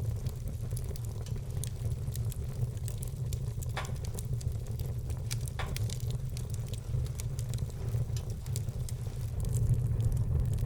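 Wood fire burning, with frequent small crackles and a few louder pops about four and six seconds in, over a steady low rumble.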